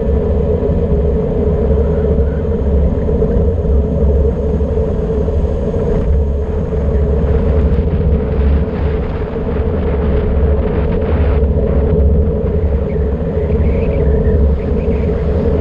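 Wind rushing over the microphone of an action camera on a bicycle descending a mountain road at about 55 km/h: a steady, heavy low rumble with a constant hum.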